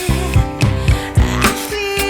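Background pop music with a steady drum beat, about two beats a second, and a vocal-style melody.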